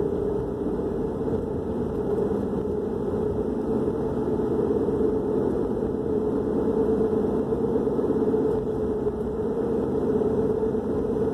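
Steady drone of a running vehicle engine, an even low hum with no change in pitch or level.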